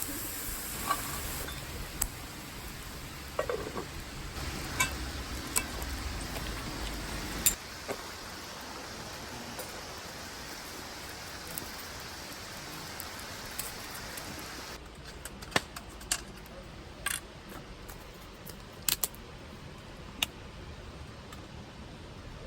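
Scattered short clicks and light knocks, a dozen or so, over a steady background hiss that drops suddenly about two-thirds of the way through.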